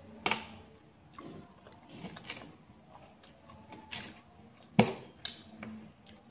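Metal spoon and fork clinking and scraping against a plate while cutting meat: a few separate sharp clicks, the loudest just before five seconds in.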